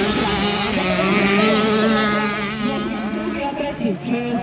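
Two-stroke 65cc motocross bikes racing, their engines revving up and down as the riders work the throttle, easing off about three and a half seconds in.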